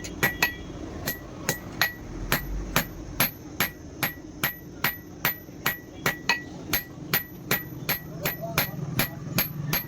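Hand hammer blows on steel at an anvil, forging, in a steady rhythm of a little over two strikes a second, each blow ringing briefly.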